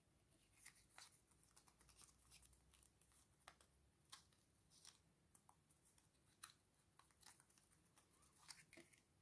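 Near silence with faint, scattered paper rustles and light clicks as patterned paper is handled and pressed down for gluing.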